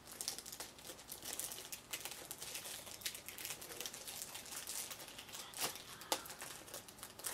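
A plastic packet crinkling in a child's hands as she handles it and pulls at its opening, in irregular crackles with a few sharper ones late on.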